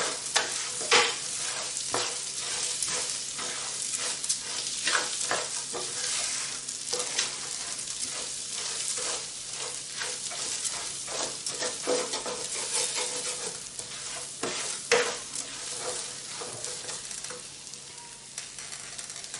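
Food sizzling as it fries in olive oil in a pan, with a utensil stirring and clicking against the pan many times. The sizzle fades a little near the end.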